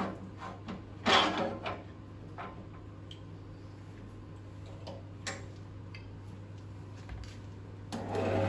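Scattered clicks and knocks as the tool rest of a wood lathe is set against a rough log, the loudest cluster about a second in, over a low steady hum. Near the end the lathe motor switches on and runs steadily, spinning the log.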